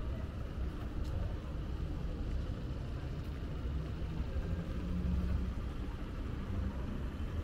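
Street ambience of a busy city centre: a steady low rumble of road traffic.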